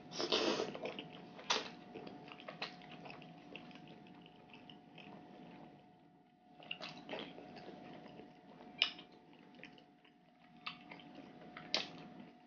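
Close-miked wet eating: a loud slurp of glass noodles in thick spicy chicken-feet broth at the start, then chewing with wet clicks and smacks. Further slurps of sauce from a spoon come around six to seven seconds in, with a couple of sharp lip smacks later, over a faint steady hum.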